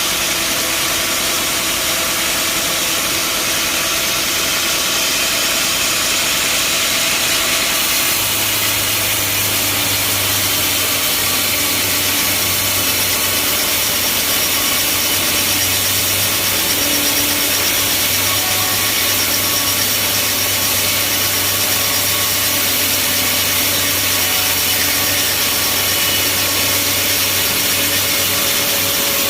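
Band sawmill cutting through a mahogany log: a loud, steady sawing noise over the running motor. About eight seconds in, a low hum sets in and the sound changes, as the blade works under load.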